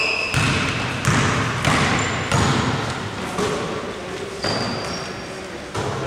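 Basketball bouncing on a hardwood gym floor as a player dribbles, about one bounce every two-thirds of a second through the first half, with a few short high squeaks of sneakers on the court.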